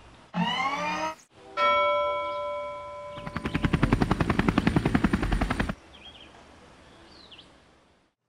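A short run of added sound effects: a quick rising whoosh, then a bell-like chime ringing out for about a second and a half, then a fast buzzing rattle of about ten pulses a second that cuts off sharply.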